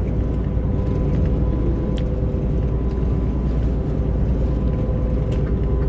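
Steady low rumble of a diesel 18-wheeler truck on the road, heard inside its cab, with a faint steady hum above it.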